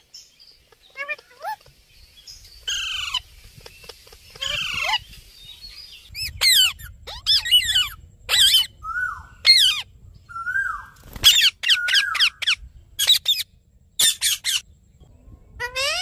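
Rose-ringed and Alexandrine parakeets giving harsh, shrill squawking calls, each sweeping down in pitch. The calls come singly at first and then in quick runs through the second half.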